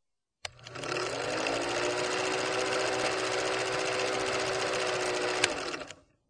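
Old film projector sound effect: the steady, fast mechanical clatter of a running movie projector. It starts with a click about half a second in, has one sharper click near the end, and fades out just before the end.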